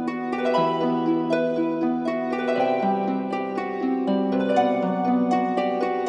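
Background instrumental music: a gentle melody of quick plucked-string notes over lower sustained notes.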